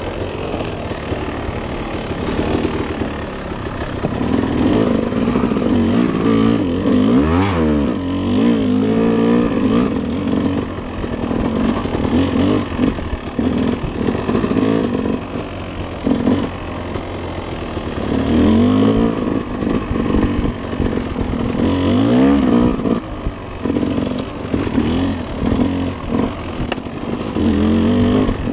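Dirt bike engine running under way, revving up and easing off again and again, its pitch rising and falling with the throttle. A steady high-pitched whine sits underneath throughout.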